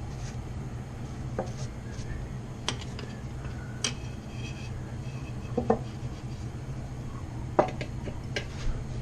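Scattered light knocks and clicks of small hard objects being handled, about six in all, the loudest two a little before the middle and near the end, over a steady low hum.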